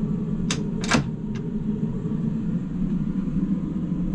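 Wooden louvered locker door being shut: a few sharp clicks and knocks in the first second and a half, the loudest about a second in, as the door and its catch close. Under it, a steady low hum of onboard machinery.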